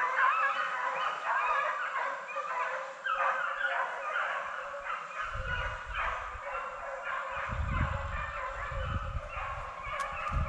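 A pack of deer hounds baying and bawling together on a running deer, many voices overlapping without a break. Low rumbling on the microphone comes in about halfway through.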